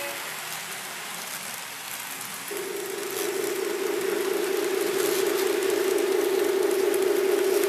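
Simulated diesel engine sound from a model Union Pacific diesel locomotive's onboard sound system: a steady, slightly pulsing engine drone that comes in about two and a half seconds in and grows louder.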